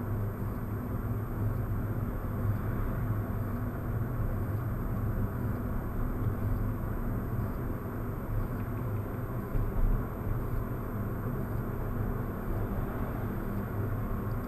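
Car cabin driving noise, engine and tyre rumble on the road, as picked up by a dash cam's built-in microphone, with a faint steady high whine over it. A brief louder knock comes about ten seconds in.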